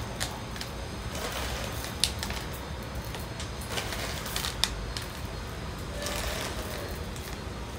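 Dried popcorn kernels shaken from a plastic bag onto potting soil in a plastic planter box: an irregular clatter of small clicks, with a few sharper ones where kernels hit the planter's plastic.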